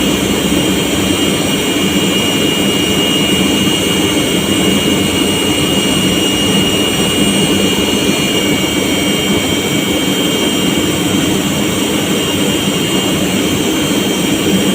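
Large electric industrial air compressor running steadily: a loud, even drone with several constant high whines over it.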